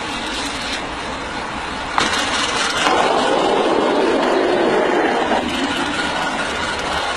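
Steam hissing from a coal-fired miniature live-steam locomotive: a steady rushing hiss that, after a click about two seconds in, grows louder and then eases off again a little after five seconds.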